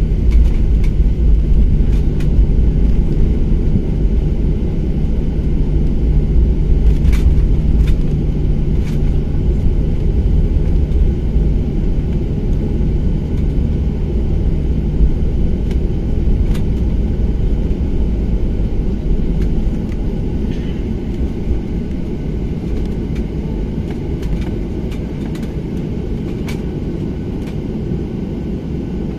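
Passenger-cabin noise of a Jet2 airliner taxiing: a steady low drone from the jet engines and a rumble from the wheels on the concrete, with a few faint clicks. A low hum in the drone fades after the first ten seconds or so, and the overall level eases off gradually later on.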